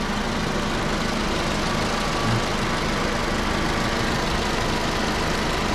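Toyota RAV4 engine idling steadily, warmed up to operating temperature.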